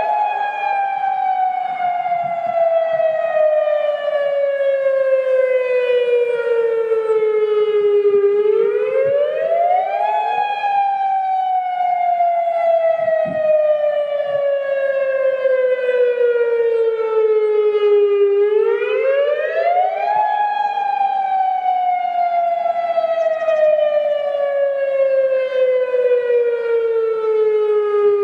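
Federal Signal Modulator 6024-B electronic siren sounding the tsunami-drill wail. Its pitch rises quickly, then falls slowly, repeating about every ten seconds.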